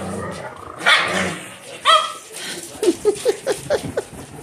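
Dogs in rough play: two loud barks about a second apart, then a quick run of about seven short, high yips near the end.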